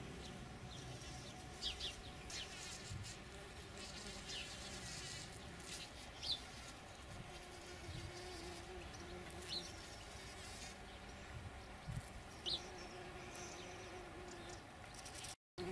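Bumblebees buzzing among the flowers, a faint low hum that comes and goes. A few short high chirps are scattered through it.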